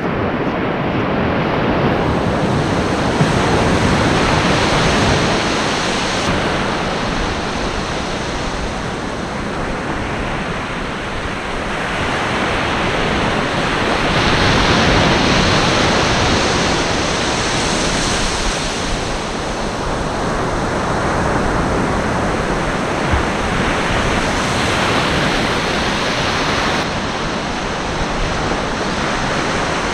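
Ocean surf washing onto the beach, a steady rush that swells and eases every several seconds as waves break.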